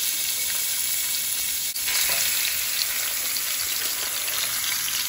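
Raw ground beef sizzling in hot oil in a frying pan, a steady hiss.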